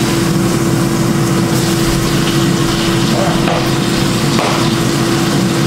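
Food frying in a pan, a steady sizzle with a constant hum holding one tone underneath.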